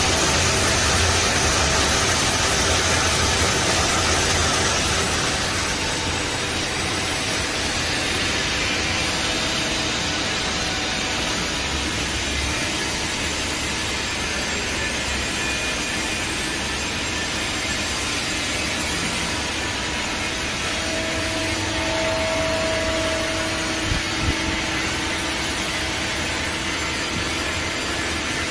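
Takamaz X-15 CNC lathe running a cut, with coolant spraying onto the spinning part for the first five seconds or so. After that comes a steady, slightly quieter machine hum and hiss, with two short knocks a little over two-thirds of the way through.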